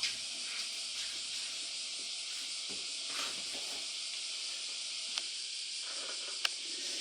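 A chorus of cicadas singing steadily, heard as a continuous high hiss. Two short clicks come in the second half.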